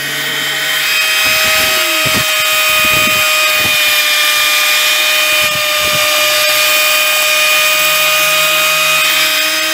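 Power sander running at a steady high whine while a plywood edge is sanded against its spinning sanding drum.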